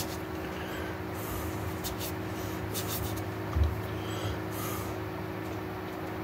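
Steady low electrical hum under short rustles of hands and sleeves moving close to the microphone, with a soft bump a little past halfway.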